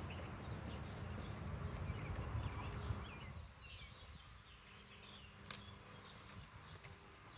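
Small birds chirping in the background over a low rumble that drops away about three seconds in, with one sharp click a little later.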